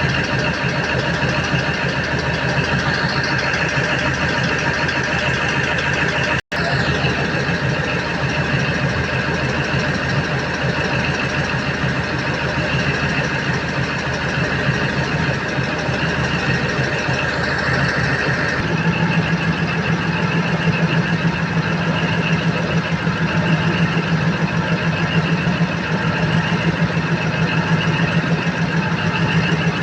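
Cummins KTA50 sixteen-cylinder turbocharged diesel running steadily at idle during a post-overhaul test run. It cuts out for an instant about six and a half seconds in, and about 19 seconds in the sound changes to a stronger low hum.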